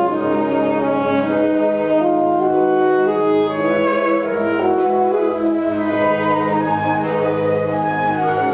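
High school concert wind band playing held, shifting chords of brass and woodwinds, with an alto saxophone soloist playing out in front.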